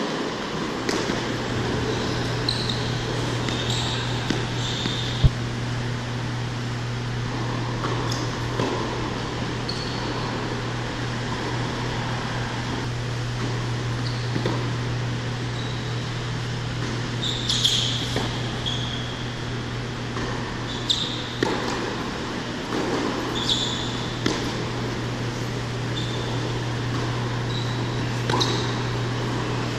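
Tennis ball struck by racquets during a rally on an indoor hard court: sharp pops every few seconds with a short echo, mixed with brief high squeaks of tennis shoes. A steady low hum of the hall's ventilation fans runs underneath.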